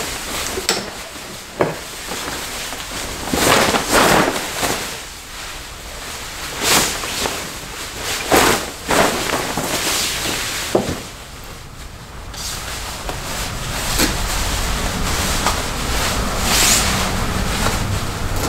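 Nylon salon cape rustling and swishing as it is shaken out and draped over a seated person, in several separate swishes with a few small clicks between them.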